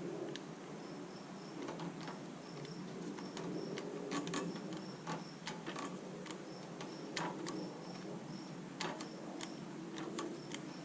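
Quiet clicks and scrapes of a knife being worked through a rubber fuel line. A faint high chirp repeats in short runs of two or three underneath.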